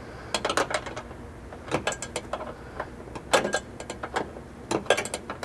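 Open-end 10 mm wrench clicking and clinking against a factory roof-rail nut as it is worked loose a little at a time, in short irregular clusters of sharp metal clicks about every second or so.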